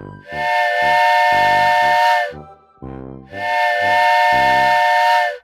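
Train whistle sounding two long blasts, each about two seconds, with a hiss under the chord.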